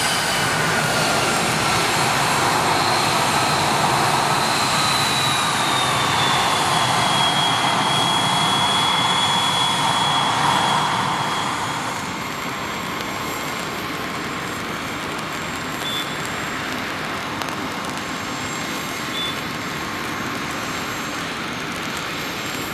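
Bombardier CRJ-900 jet taxiing, its two rear-mounted General Electric CF34 turbofans whining over a steady rush, the whine falling slowly in pitch. About halfway through the sound turns abruptly quieter and steadier, as distant jet noise.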